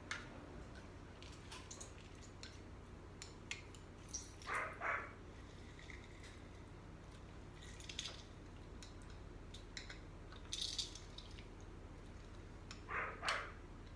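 Lemon halves being pressed in a hand-held metal lemon squeezer: faint clicks and squishes of the metal and fruit, with two pairs of short louder squeaky sounds, one about four seconds in and one near the end, and two brief hissy sounds in between.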